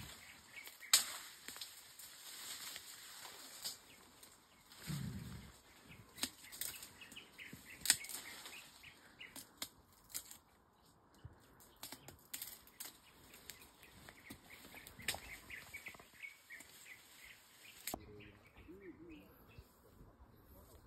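Leafy forest vegetation rustling, with scattered sharp snaps of stems and twigs, a brief low rumbling sound about five seconds in, and faint high bird chirps behind.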